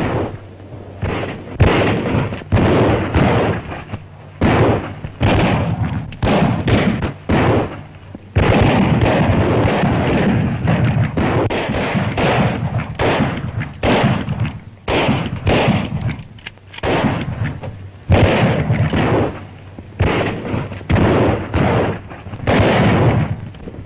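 Western gunfight gunfire: shot after shot, at times several a second, heard on an old optical film soundtrack with little high end.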